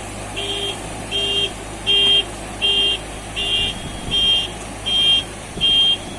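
An electronic beeper sounding a steady series of short high-pitched beeps, about eight in six seconds, over a steady noisy background.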